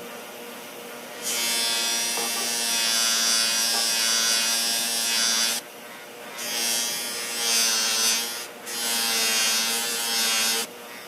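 A bench power tool's motor running with a steady hum while a knife blade is held against it for polishing, heard as three long spells of bright, hissing grinding contact starting about a second in, the first lasting about four seconds.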